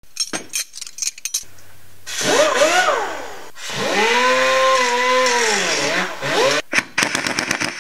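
Intro sound effect of a motor whirring: its pitch climbs and dips, then holds steady for a couple of seconds before falling away. Bursts of rapid clicking come at the start and again near the end.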